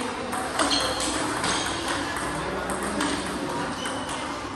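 Table tennis multiball drill: celluloid-type plastic balls clicking off rubber bats and bouncing on the table in quick succession, one short ping after another.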